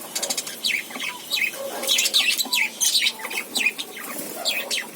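Small pet parrots chirping busily, many short high chirps overlapping several times a second.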